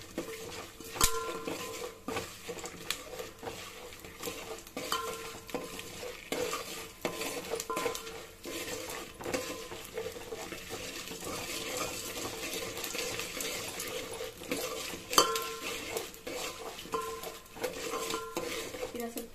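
A steel spoon stirring a tempering of peanuts, chana dal and curry leaves in hot oil in a large aluminium pot: repeated metal scrapes and clinks over a light sizzle. Two louder clangs of the spoon on the pot ring out, about a second in and about fifteen seconds in.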